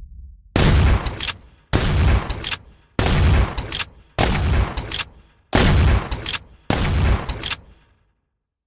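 Remington Model 870 Police Magnum pump-action shotgun fired six times in steady succession, about one shot every 1.2 seconds. Each shot is followed by a few quick sharp clicks as the blast dies away.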